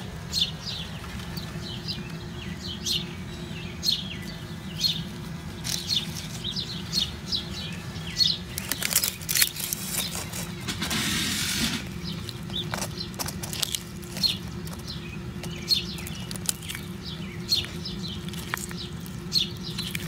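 Small birds chirping repeatedly in short high notes over a steady low hum. About eleven seconds in there is a rustling buzz lasting roughly a second, with a few sharp clicks around it.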